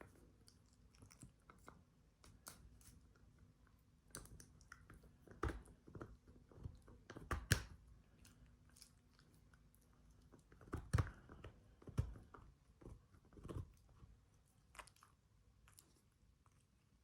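A dog chewing a treat: irregular crunches and clicks of teeth on the snack, with a few louder bites in the middle.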